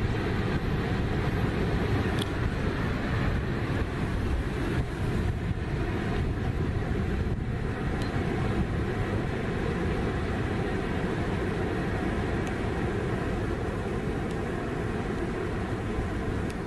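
Steady low rumble of a loaded freight train's hopper cars rolling away on the rails.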